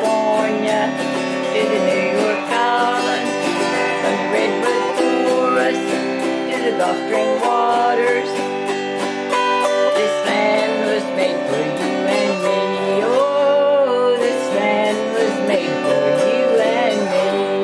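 Autoharp strummed in steady chords, with a wavering melody line heard over them.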